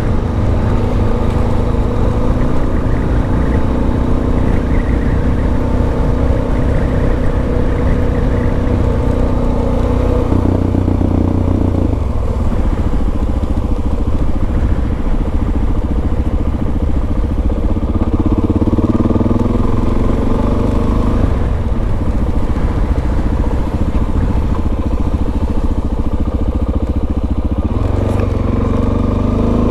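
Suzuki DR-Z400S's single-cylinder four-stroke engine running under way, its pitch shifting up and down several times as the throttle and gears change.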